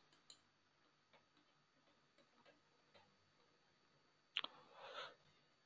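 Near silence with a few faint clicks, then a sharper click about four and a half seconds in, followed by a brief soft noise.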